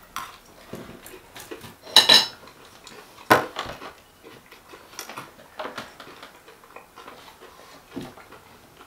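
Metal forks clinking and scraping on a plate as pieces of food are speared and cut: a scatter of separate clinks, the loudest about two and three seconds in.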